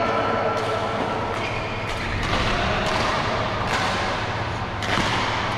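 Badminton rackets striking shuttlecocks: sharp knocks at irregular intervals, several in a few seconds, echoing in a large hall over a steady low hum.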